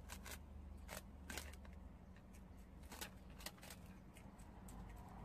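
Prairie dogs gnawing puffed rice cakes: faint, irregular crisp crunches and nibbles over a low steady hum.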